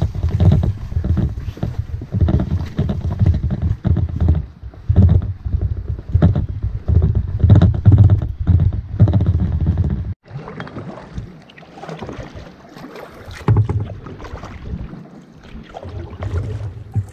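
Footfalls and low thuds of someone walking a portage trail with a canoe carried overhead, coming roughly once a second, with wind rumbling on the microphone. After an abrupt cut, quieter water sounds of a canoe moving on a lake: light splashing and lapping with occasional wind gusts.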